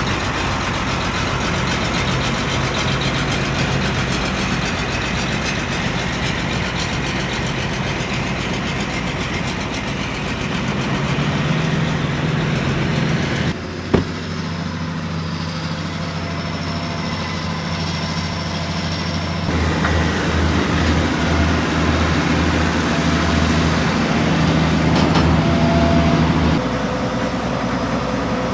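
Heavy farm machinery engines running steadily. The engine note changes abruptly three times, with one sharp knock about halfway through.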